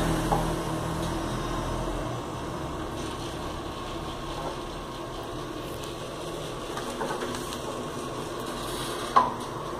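Steady background hum with faint handling noises around a manual heat press closed on an envelope, then one sharp knock near the end as the press is handled.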